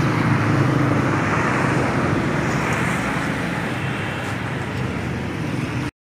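A steady running motor, a low hum with a wash of noise over it, easing slightly and then cutting off suddenly near the end.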